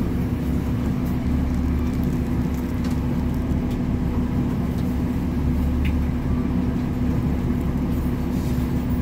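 MTA city bus running, heard from inside the cabin: a steady low engine and road rumble with a constant hum, and a few faint clicks and rattles.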